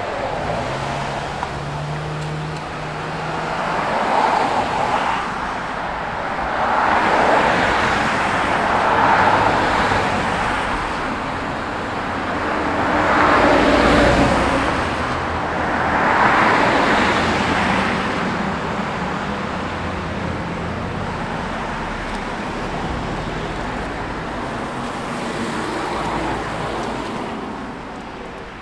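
Road traffic: about five cars pass one after another, each swelling and fading, with the loudest passes coming about halfway through.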